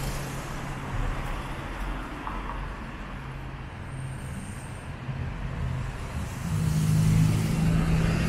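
City street traffic: motor vehicle engines running steadily, with one engine growing louder in the last couple of seconds.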